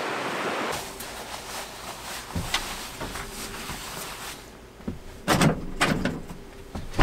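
A moment of running creek water, then indoor handling noises: cloth rustling and light knocks, with a couple of louder swishes about five to six seconds in as a dark fabric window curtain is pulled and adjusted.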